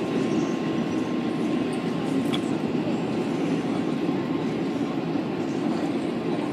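Steady running noise of a New York City Subway R188 car in motion on the 7 line's elevated track, heard from inside the car, with a faint steady whine over it.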